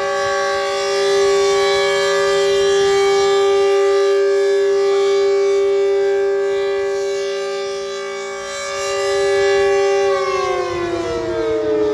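Super Sirex outdoor warning siren sounding a loud, steady tone that swells and fades slightly in loudness. About ten seconds in, its pitch begins to slide downward.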